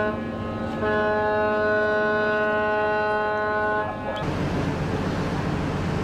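Ship's horn sounding a chord of several steady tones at once: the tail of one blast at the very start, then one long blast of about three and a half seconds. It cuts off abruptly near the end, giving way to a low rumbling noise.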